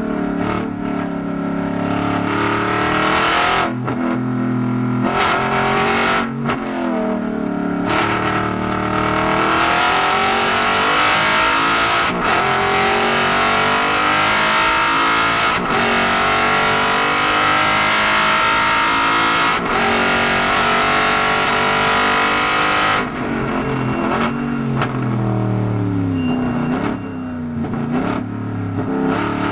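Aston Martin Vantage GT4's 4.7-litre V8 heard from inside the cabin, accelerating hard through the gears on track with a brief cut in the note at each upshift. About 23 seconds in it abruptly lifts off, and the revs then rise and fall several times as the car slows for a corner.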